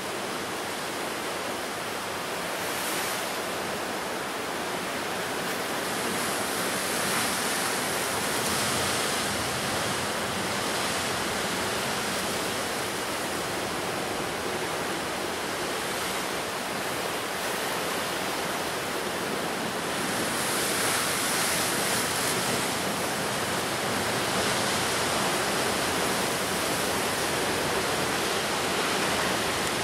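Ocean surf breaking on the shore: a continuous rush of waves, swelling louder twice, around a quarter of the way in and again about two thirds through.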